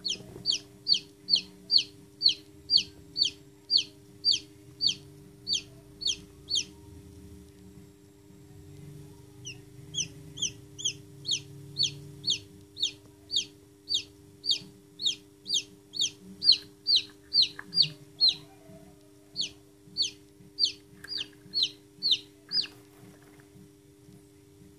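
Chick peeping: a rapid run of loud, high, downward-slurred peeps, about two or three a second, breaking off for a few seconds about a third of the way in and then resuming. A steady low hum runs underneath.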